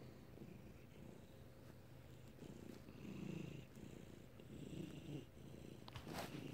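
Ginger cat purring close to the microphone: a low, steady rumble that swells louder twice in the second half. A brief sharp rustle near the end.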